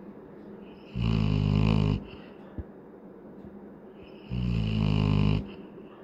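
Adult Labrador dog snoring in its sleep: two loud snores, each about a second long and about three seconds apart, with quieter breathing between them.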